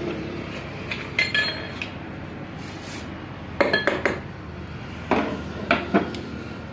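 Metal engine parts and tools clinking and knocking against a tractor engine block and crankshaft as they are handled during assembly: a couple of ringing clinks about a second in, a quick cluster of clinks around the middle, and three sharper knocks near the end, over a steady background hum.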